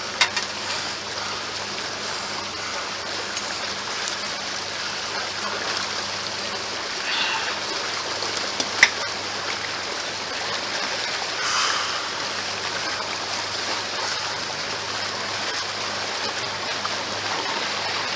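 Steady rush and splash of water, with a faint low engine hum underneath and a single sharp knock about nine seconds in.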